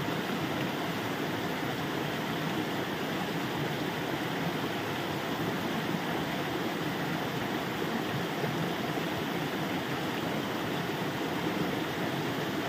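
Steady rushing of a shallow stream and a small waterfall, with a thin jet of water pouring and splashing into the stream.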